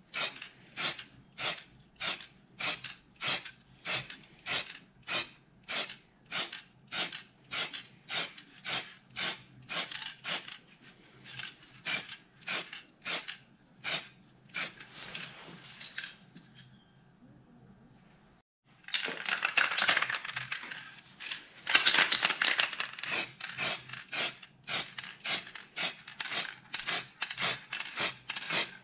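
Aerosol spray paint can: the mixing ball clacks inside the can about twice a second as it is shaken, with short hisses of spray between. A longer continuous spray hiss comes about 19 seconds in and again from about 22 seconds, after a brief pause.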